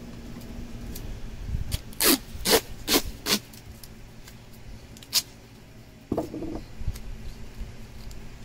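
Duct tape being pulled off the roll in four quick rips in a row, then one more, as it is wrapped around a pond pump filter, followed by brief crackling as the filter material is handled.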